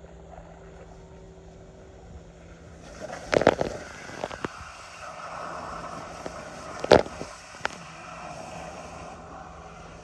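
Water spraying and gushing under pressure from an open joint in a plastic water-supply pipe as it is worked on by hand. A few sharp knocks stand out, the loudest about three and a half seconds in and again about seven seconds in.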